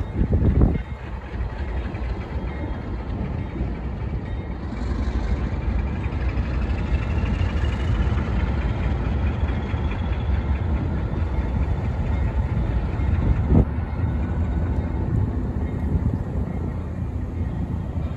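A train rolling past, its cars giving a steady low rumble. A thin high squeal rises in pitch about six to ten seconds in, and there is a knock near the start and another about thirteen seconds in.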